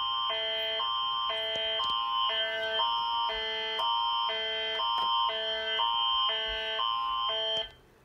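Canadian Alert Ready attention signal played through a TV's speaker for an Alberta Emergency Alert province-wide test: a steady high tone over lower tones that switch back and forth about twice a second. It cuts off near the end, just before the spoken alert message.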